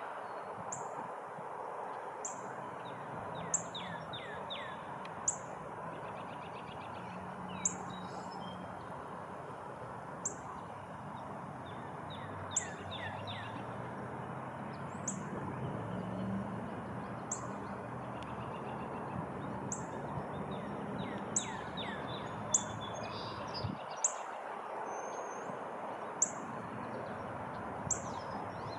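Woodland birds calling: a short, high chirp repeated every one to two seconds, with a few lower down-slurred notes from other birds, over a steady background hiss.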